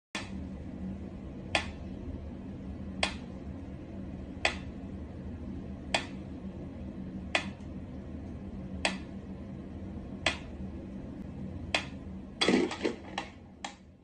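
Mechanical pendulum metronome ticking at a slow, even beat, one sharp tick about every second and a half. Near the end comes a quick cluster of louder knocks and rustles.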